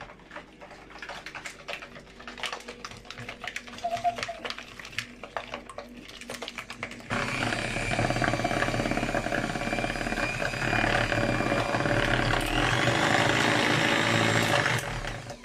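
Electric hand mixer beating eggs and sugar in a plastic bowl: light irregular clicking and tapping for about seven seconds, then the motor runs loud and steady with the beaters whirring through the mixture, and stops just before the end.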